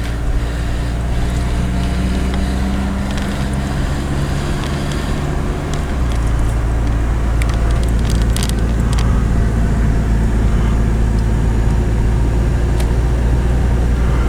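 Car interior noise while driving: a steady low engine and road hum that steps to a different pitch about six seconds in, with a small portable plug-in heater running in the cabin in place of the car's failed blower motor.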